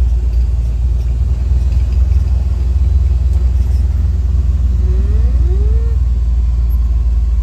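Loud, steady low rumble of wind buffeting the microphone over a UTV running. About five seconds in come two short tones that rise and then fall.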